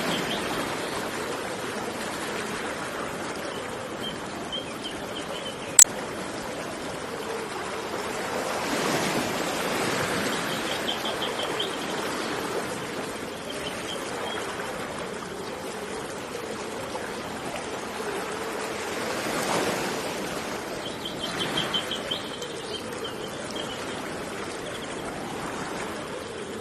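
Steady rushing of running water, swelling and easing twice, with birds chirping in short trills every few seconds. A single sharp click cuts through about six seconds in.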